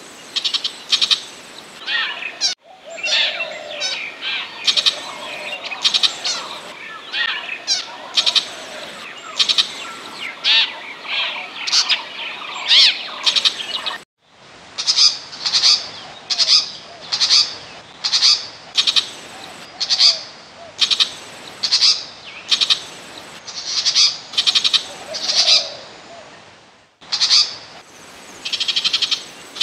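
Burmese shrike calling, from a decoy-call recording: short high calls repeated about once or twice a second, broken by three brief gaps.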